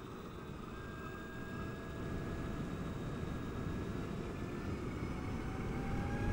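Zero DSR electric motorcycle on the move: steady wind and road rumble, with a faint electric motor whine climbing slowly in pitch as the bike speeds up.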